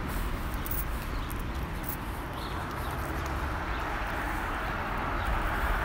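Outdoor street ambience: a steady hum of distant traffic with a low rumble on the microphone and a few light clicks in the first couple of seconds.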